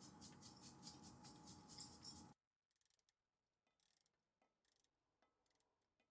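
Near silence: faint, irregular small clicks of hands handling the bolts and fittings on a car's brake caliper for about two seconds, then the sound drops out almost entirely.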